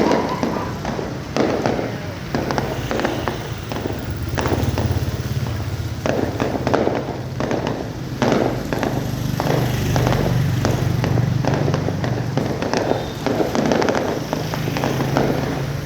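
Fireworks display: shells bursting one after another in a dense run of booms and crackles, over a steady low drone.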